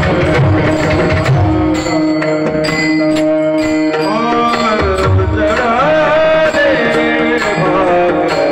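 Marathi kirtan tune: a male voice sings a held, gliding melody over sustained accompanying notes, with hand-drum strokes in the first two seconds and again from about five seconds in.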